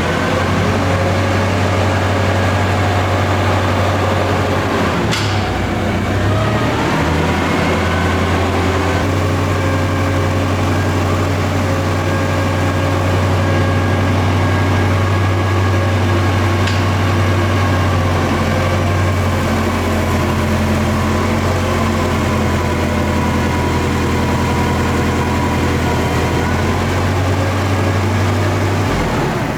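An engine idling steadily, its pitch dipping briefly about six seconds in before settling back, with a few faint ticks over it.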